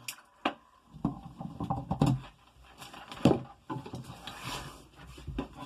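Hands handling things at the new outlet box: a few sharp clicks and knocks with some rustling in between.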